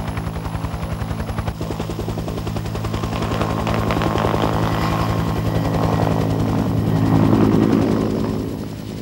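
Military helicopter's rotor chopping rapidly over a steady engine hum. The sound swells to its loudest late on, then dies down near the end.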